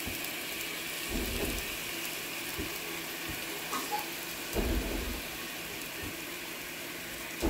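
Oil with sofrito and garlic sizzling steadily in a frying pan as a thin stream of honey is poured in, with a few dull low thumps.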